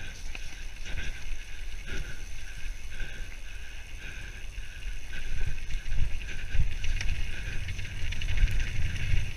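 Mountain bike descending a dirt singletrack at speed, heard from a rider-mounted camera: tyre and trail rumble with wind buffeting the microphone and rattling from the bike, getting louder about halfway through.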